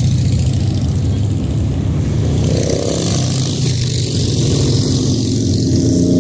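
A procession of motorcycles riding past, engines running in a steady loud rumble, with one bike's engine note rising and falling as it passes about halfway through.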